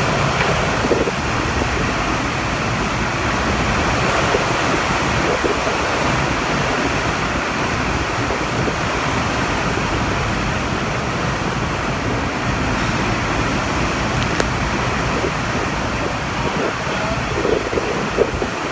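Hurricane wind blowing steadily with surf, the wind buffeting the microphone.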